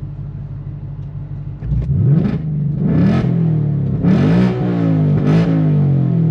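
2024 Ford Mustang GT's 5.0 L Coyote V8, breathing through a Steeda H-pipe with the active exhaust in track mode, idling and then revved four times in quick succession, the third rev held the longest.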